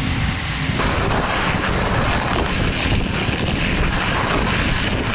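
Wind buffeting the microphone: a loud, steady rush with a heavy, fluttering low rumble. It turns suddenly brighter a little under a second in.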